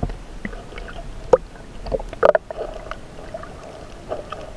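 Water sloshing around an action camera as it dips below the surface and films underwater, with scattered knocks and clicks; the loudest knocks come a little past one second and just past two seconds in.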